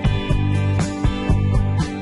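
Background music with a steady beat and sustained bass notes.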